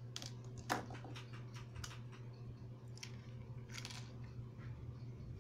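Scattered small plastic clicks and knocks as a computer mouse's screws are undone and its plastic shell is pried apart, with a sharper knock under a second in and a quick run of clicks about four seconds in. A steady low hum runs underneath.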